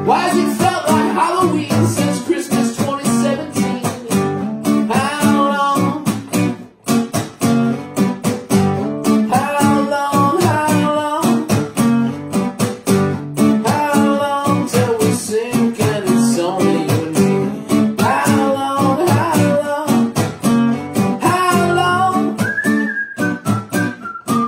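Background music: a song with acoustic guitar.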